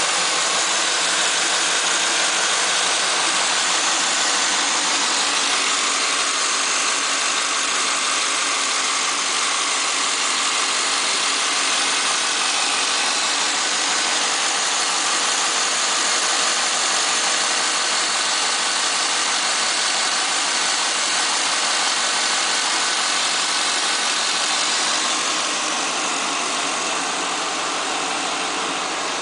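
2010 Camaro's V8, fitted with a Vararam ram-air intake, idling steadily on a cold idle just after start-up. The sound is heard with the hood open and grows a little quieter near the end.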